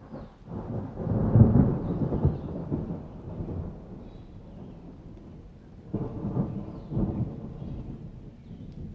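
Thunder rumbling during a heavy rainstorm: a loud, deep roll about a second in that fades out, then a second roll about six seconds in, over the steady rain.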